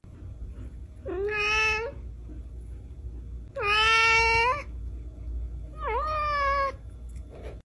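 A cat meowing three times, each a drawn-out meow of just under a second that rises at the start and then holds its pitch, about two seconds apart.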